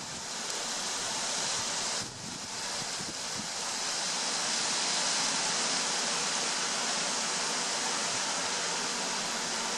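Strong gusty wind rushing steadily, with a brief drop about two seconds in.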